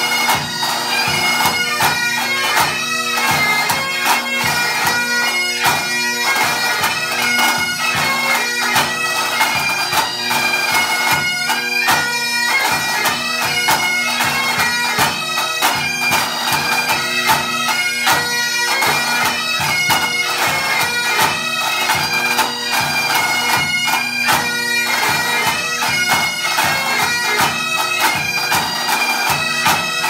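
Pipe band playing: Great Highland bagpipes play a tune over their steady drones, with snare drums, tenor drums and a bass drum beating out the rhythm.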